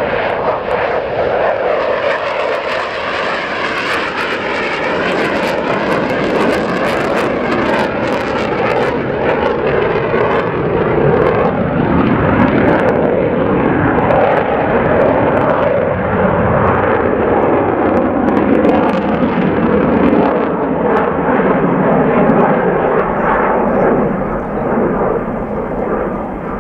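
USAF F-15 Eagle fighter's twin Pratt & Whitney F100 turbofan jet engines, loud and continuous, as the jet flies low past the airfield and turns overhead. The tone of the jet noise shifts as it passes, from about halfway through.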